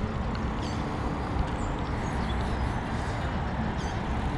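Steady rushing outdoor background noise, heaviest in the low end, with a few short bird chirps over it.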